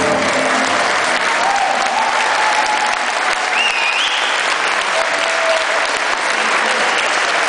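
Audience applauding steadily in a large hall, with a few voices calling out over the clapping.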